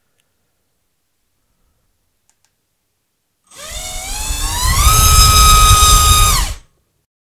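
BrotherHobby Tornado T2 2206 2300kv brushless motor spinning a Racecraft 5045 bullnose propeller on a thrust stand from a 4S battery: after a silent start, a whine rises sharply as the throttle comes up about three and a half seconds in. It holds at high throttle, loud, with a rush of prop wash, near 1,200 g of thrust, then cuts off suddenly near the end.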